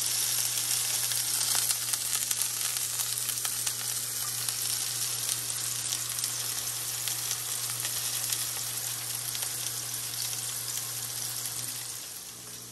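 Pork patties searing in a hot cast iron skillet: a steady sizzle full of fine crackles, easing slightly near the end.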